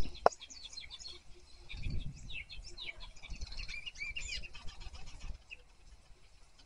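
Small birds chirping in many quick, high notes, with a sharp click just after the start and a low rumble swelling about two seconds in.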